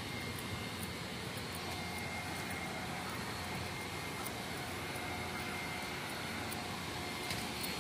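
Steady distant engine rumble with a faint high steady whine, level throughout with no rise or fall.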